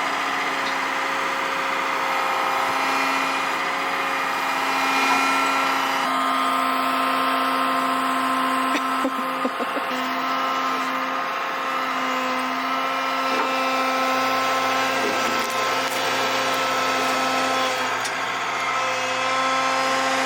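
Excavator running under work, its engine and hydraulics making a steady whine that holds one pitch throughout.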